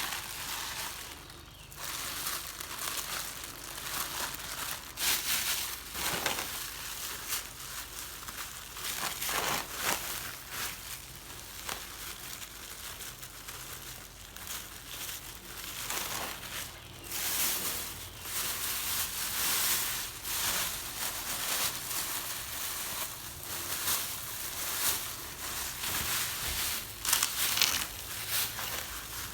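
Irregular crinkling and rustling that comes in uneven swells, over a faint low hum.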